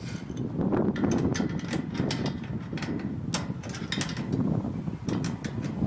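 Light, irregular metallic clicks and clinks, several a second, of a small open-end wrench working a nut and bolt on a steel generator frame, over a low background rumble.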